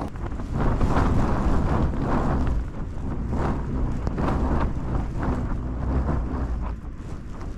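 Strong wind gusting against a tent, the flysheet fabric flapping and shaking with a heavy rumble of wind on the microphone. The gusts swell about a second in, ease, and build again.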